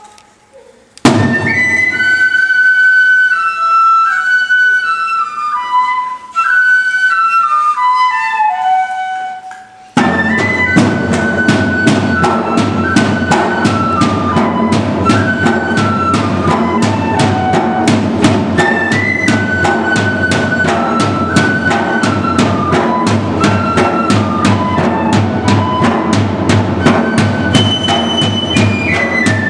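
Traditional Japanese dengaku music: a single sharp drum stroke, then a flute playing stepwise falling phrases; about ten seconds in, drums and percussion join in a rapid, steady beat under the flute's repeated descending melody.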